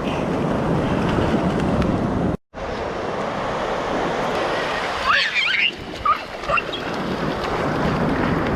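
Ocean surf washing on the beach, a steady rushing noise with wind on the microphone. It cuts out for a split second about two and a half seconds in, and a few short high-pitched cries come through around the middle.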